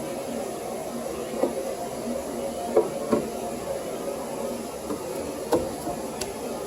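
Several short, sharp knocks and clicks from tools and parts being handled during work on the car's front axle and suspension, over a steady background hum.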